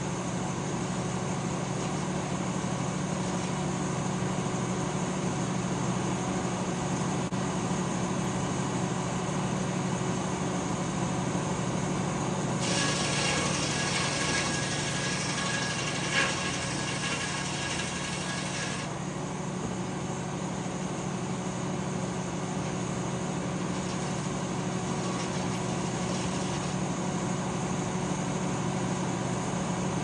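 Sawmill engine running steadily, with a stretch of about six seconds midway where a louder, higher-pitched, rasping sound of the saw cutting through wood rises over it and then stops.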